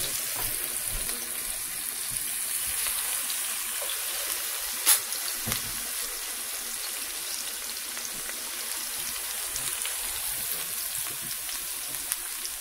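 Chopped onion sizzling steadily in hot oil in a stainless steel pan, with one sharp click about five seconds in.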